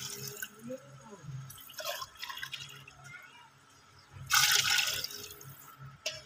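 Water poured from a steel tumbler into a large aluminium cooking pot of broth, splashing into the liquid in a short pour at the start and a longer one about four seconds in.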